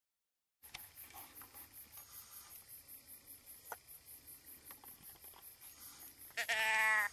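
Crickets chirping in a fast, even, high-pitched pulse, about four to five chirps a second, starting after a brief gap of dead silence. Near the end a louder, pitched call, slightly falling and lasting under a second, cuts across them.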